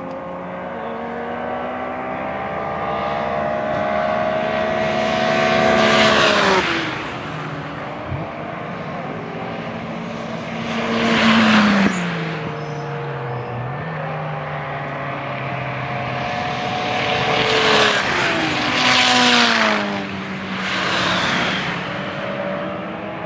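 Endurance racing cars passing one after another at speed, each engine note swelling and dropping in pitch as it goes by. About five cars pass, two of them in quick succession near the end.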